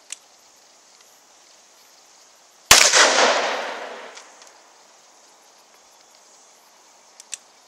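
A single loud gunshot about three seconds in, its report echoing and fading away over a second and a half.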